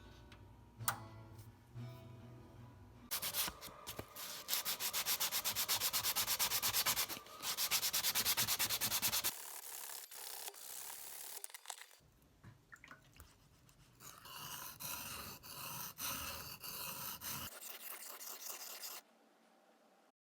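Abrasive sanding of a steel knife blade, heard in several short cuts. In the loudest stretches, through the first half, it is a rapid, even scratching.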